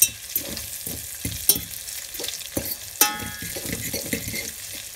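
Chopped bacon sizzling and crackling as it fries golden brown in a stainless steel pot while being stirred. The stirring scrapes and knocks against the pot, and a harder knock about three seconds in sets the metal ringing briefly.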